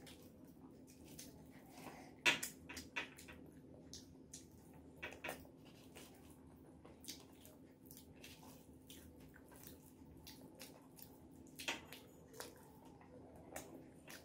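Eating sounds: wet clicks of chewing rice and curry, with fingers mixing rice on a banana leaf, in short scattered clusters, the loudest about two seconds in and near the end.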